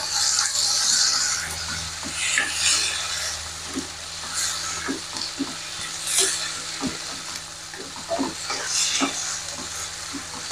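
Stir-fry of green beans, soybean sprouts and tomato sizzling in a non-stick pan, with the hiss strongest at first. A spatula stirs the vegetables, knocking and scraping against the pan again and again.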